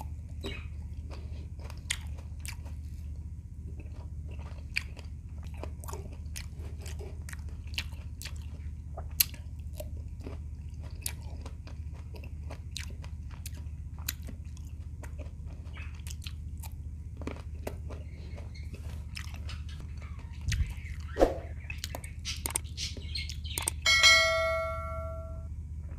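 Close-up mouth sounds of chewing and biting into red grapes: many small wet clicks and smacks over a steady low hum. Near the end comes a short bell-like ding, the sound effect of an animated on-screen subscribe button.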